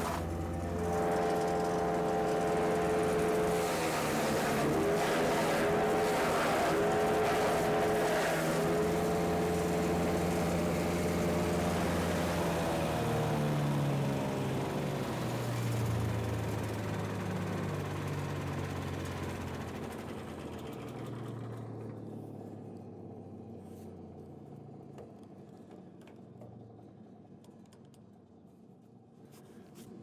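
The 13.5 hp Briggs & Stratton engine of a Range Road RR400 wood chipper runs with its pitch dipping and wavering. From about two-thirds of the way through, the pitch falls away over several seconds and the sound fades out near the end.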